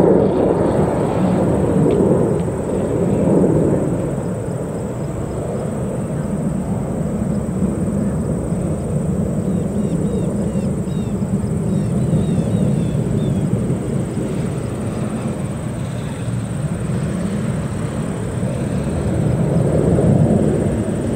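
Rumble of F-16 fighter jet engines passing out of sight. It swells in the first few seconds, eases off, then builds again near the end.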